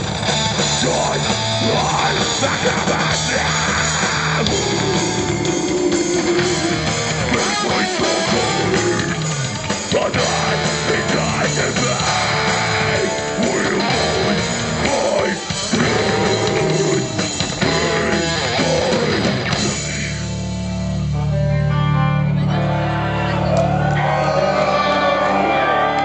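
Melodic death metal band playing live: distorted electric guitars, drum kit and harsh vocals. About twenty seconds in the busy playing stops and a held low chord rings on.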